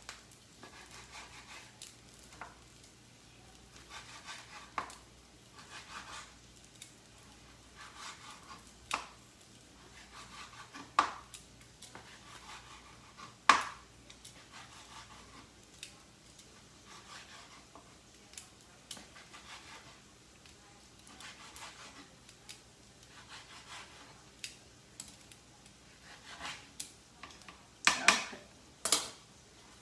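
Knife slicing cooked meat on a cutting board: scraping strokes with irregular sharp knocks of the blade on the board, the loudest in a cluster near the end.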